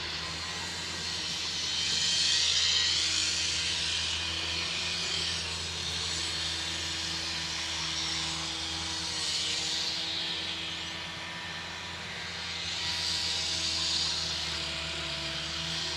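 An engine running steadily with a low hum, while a rushing, hissing noise swells up twice and dies back.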